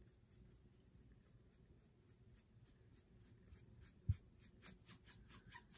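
Faint scratchy strokes of a sponge brush dragging alcohol ink across a metal tray, a few strokes a second, growing more frequent and a little louder in the second half. A single soft low thump comes about four seconds in.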